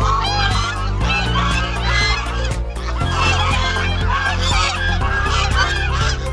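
A flock of domestic Chinese geese honking, many short overlapping calls with no break, over background music with a low bass line.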